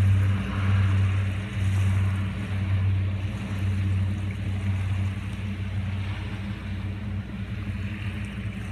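DHC-6 Twin Otter seaplane's twin turboprop engines droning with a steady low hum, fading as the aircraft flies away after take-off. A faint wash of surf runs beneath.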